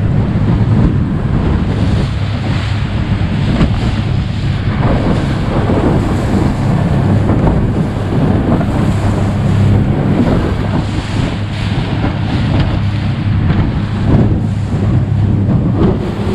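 Outboard motor running steadily at speed, pushing a small aluminium jon boat through choppy water, with heavy wind buffeting the microphone and the hull slapping and splashing through the waves.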